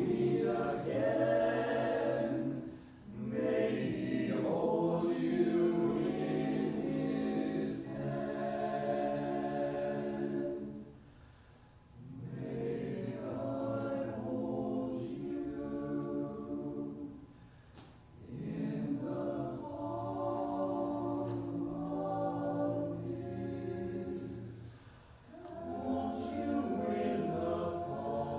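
Small mixed-voice a cappella choir singing held chords in long phrases, with four short pauses between phrases.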